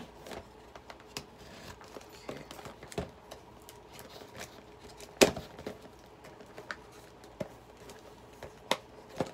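Small cardboard box being handled and worked open by hand: scattered taps, scrapes and clicks, with a sharp knock about five seconds in and another near the end.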